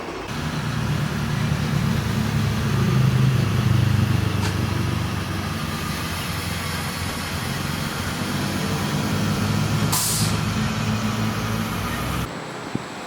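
Simulated diesel truck engine from an RC truck's sound module, running and revving up over the first few seconds before settling, with a short air-brake hiss about ten seconds in. It cuts off suddenly near the end.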